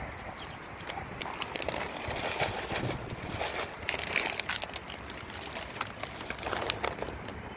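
A plastic bag of dry cat food crinkles as kibble is shaken out onto concrete. Many small sharp clicks of pellets scatter, thickest in the middle.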